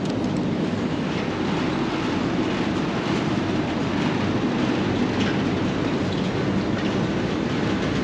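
Steady mechanical rumble and whir of rooftop air-conditioning units and their fans running, even in level throughout.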